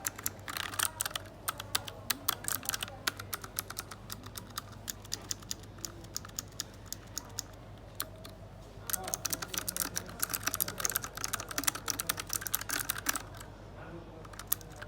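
Typing on an A4Tech Bloody D800 mechanical keyboard: two spells of fast key clicks, with slower, scattered keystrokes between them and near the end.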